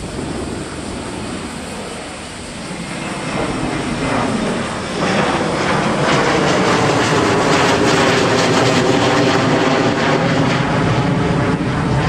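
Boeing 777 jetliner's engines passing low on its landing approach: the jet noise grows louder through the first five seconds, then stays loud and steady.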